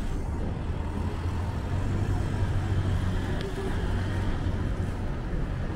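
City street traffic: a motor vehicle's engine running close by with a steady low hum, strongest midway, over the general road noise.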